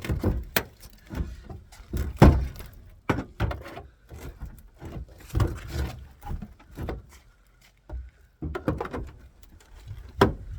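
Irregular knocks, clunks and thuds of sheet metal as the seized passenger door of an AMC Marlin is forced open. The loudest bang comes about two seconds in.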